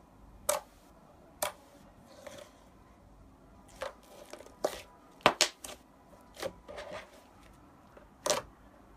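Soft pink slime being pressed and poked with fingertips: an irregular string of about a dozen sharp pops and wet clicks as trapped air bursts out of the slime.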